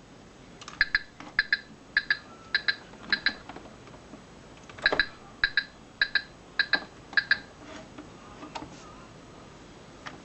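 Chicco My Little Driver toy steering wheel giving short electronic beeps, two runs of six at about two and a half a second, with a few sharp clicks between them.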